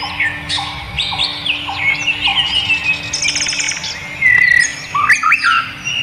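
Several wild songbirds singing at once: overlapping whistled notes, chirps and quick pitch glides. A fast rattling trill comes about three seconds in, and a louder call follows just after.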